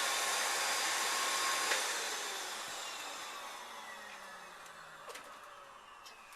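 Vacuum cleaner running with a steady rush of air, then switched off with a click about a second and a half in, its motor winding down in a falling whine that fades away.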